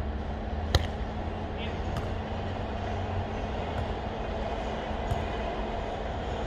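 Volleyball being struck during a rally, sharp slaps with the loudest about a second in and fainter ones a second or so apart, over a steady rumbling background with a faint hum.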